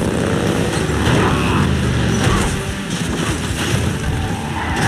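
Several motorcycles running on the road, then a crash: a rider goes down and tumbles, with a series of knocks and thuds.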